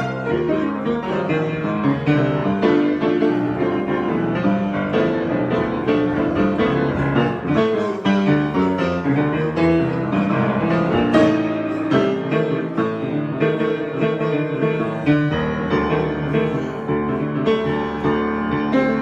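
Solo piano improvisation, with many notes played in quick succession over a steady, flowing texture.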